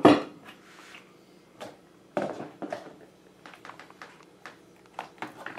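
Hands tearing apart a pre-cooked rotisserie chicken over its black plastic tray: scattered crackles, clicks and rustles. There is a loud handling sound right at the start, and a strong crackle about two seconds in.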